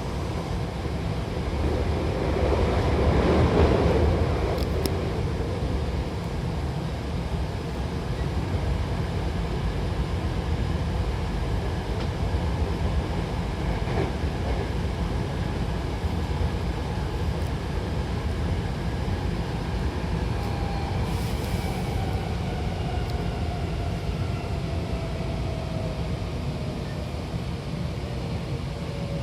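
Hankyu Takarazuka Line train running, heard from inside the car: a steady rumble of wheels on rail that swells louder about three seconds in. In the last third a whine from the traction motors falls slowly in pitch as the train slows for its next stop.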